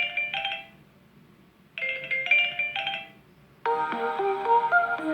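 Samsung Galaxy Note 9 ringtones. A short chiming phrase of a few notes plays twice with a pause of about a second between, then a different, fuller melodic ringtone starts a little past halfway.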